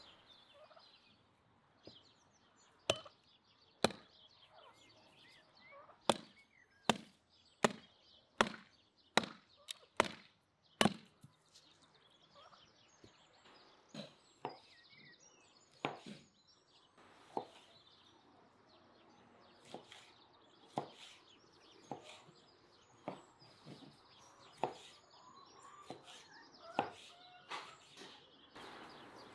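Axe chopping kindling on a wooden stump, with sharp knocks about once a second for several seconds. Later come sparser knocks of a knife on a wooden cutting board, and domestic turkeys call in between.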